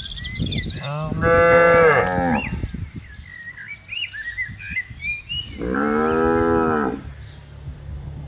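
Cow mooing twice, each moo a drawn-out call of about a second and a half, the first louder than the second.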